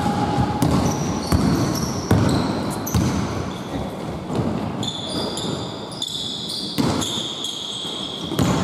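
Basketball game play on a hardwood court: a ball bouncing in scattered knocks, with many short high-pitched sneaker squeaks as players run and stop, thickest in the second half.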